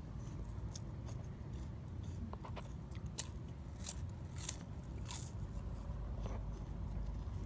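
Close-up crunching and chewing as a crisp white cracker is bitten: a handful of sharp crunches, most of them between about 3 and 5 seconds in, over a steady low rumble.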